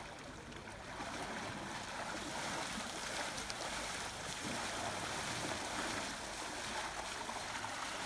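Water splashing and sloshing around elephants bathing in a shallow river, with water being thrown over the elephant lying in it. The splashing grows louder about a second in.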